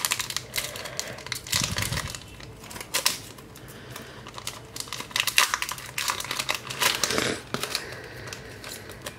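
Foil wrapper of a Pokémon trading card booster pack being torn open and crinkled in the hands, a run of irregular crackles and rustles, with the cards slid out near the end.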